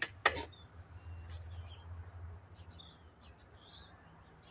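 A single sharp click from the 1990 Yamaha YZ490's kick-start just after a kick that leaves the engine not running, followed by a faint low rumble that fades over a couple of seconds. Faint bird chirps sound over it.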